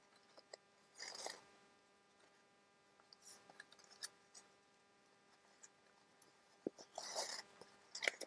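Faint handling of paper and twine: two short rustles, about a second in and near the end, with scattered light clicks and taps.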